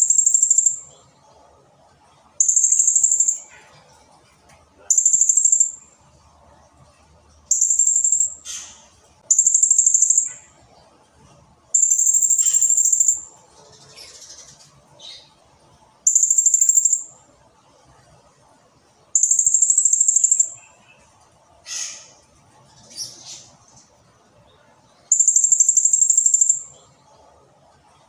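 Blue-crowned hanging parrot (serindit) calling: a series of very high-pitched, trilling calls, each about a second long, repeated every two to three seconds, with a few short falling notes in between.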